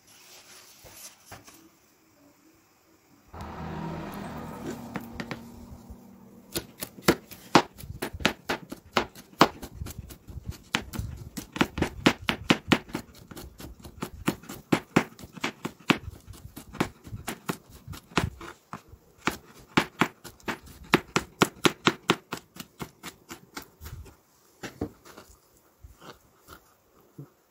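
Kitchen knife slicing a green onion on a cutting board: quick, regular knocks of the blade striking the board, several a second, that stop about three seconds before the end.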